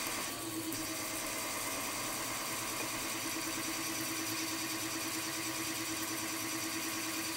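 Milling machine spindle running steadily with a counterbore cutting a 5 mm deep counterbore into an aluminium timing pulley: a constant, even machine hum.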